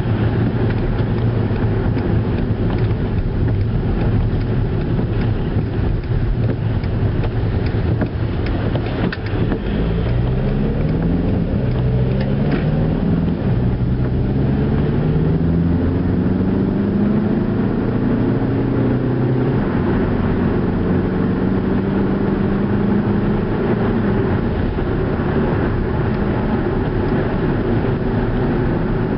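Skoda Octavia driving, with steady engine and road noise. From about a third of the way in, the engine note rises in several steps as the car picks up speed through the gears, then levels off.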